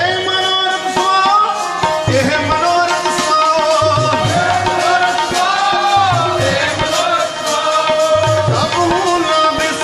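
Sikh shabad kirtan: harmoniums playing a sustained melody with voices singing, over tabla with deep bass strokes recurring about every second and a half.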